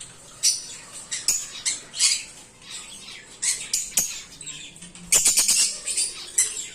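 Pet conures giving short, sharp, high-pitched chirps and squawks again and again. A loud quick run of clicks comes a little after five seconds in.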